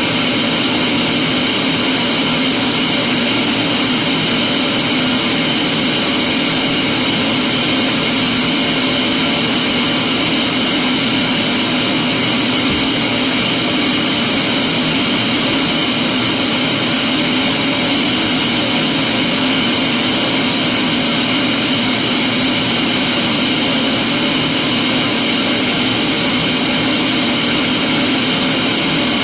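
Vacuum cleaner running steadily: a continuous motor whine and airflow rush that holds the same level throughout.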